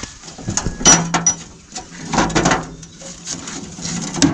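Steel-on-steel clanks and knocks as a plow's hitch bar is worked into the hitch clamp of a hand tractor to centre it. A few knocks about a second in and just after two seconds, then a sharp hammer blow near the end.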